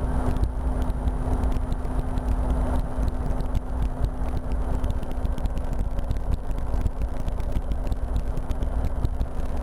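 RotorWay experimental helicopter's engine and rotor, heard from inside the cockpit in flight: a steady, unbroken drone with a constant hum.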